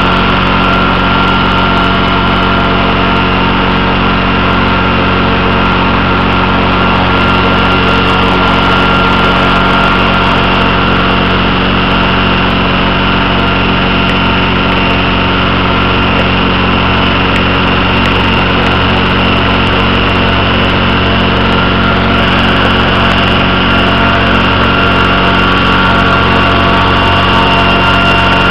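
Radio-controlled helicopter's motor and rotor running steadily: a loud, constant whine of several held tones with no change in speed.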